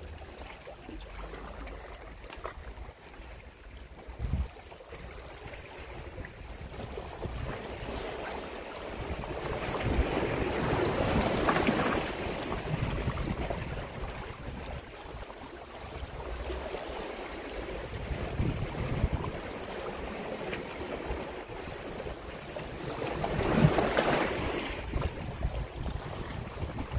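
Small sea waves washing against a rocky shore, with wind rumbling on the microphone. The wash swells louder about ten seconds in and again near the end.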